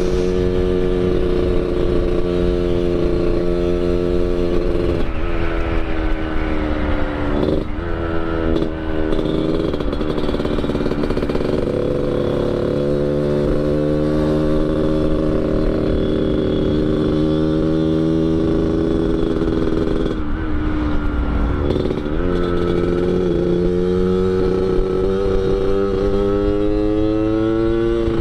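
Yamaha RX King 135 two-stroke single-cylinder motorcycle with an under-belly expansion-chamber exhaust being ridden, tuned for the raspy Medan-style 'ngorok' note. The engine pitch climbs steadily and drops sharply several times, around a quarter of the way in and again about three-quarters through.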